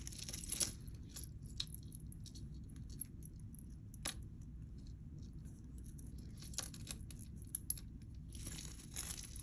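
Faint clinks and light rustling of costume jewelry being handled and set down on a tabletop, with one sharper click about four seconds in and a small flurry of clinks and rustle near the end.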